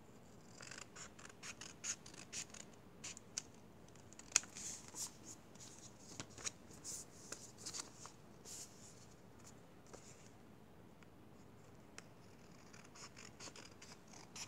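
Sheet of paper being handled: a run of short, crisp rustles and crackles, quieter for a few seconds after about ten seconds in, then picking up again near the end.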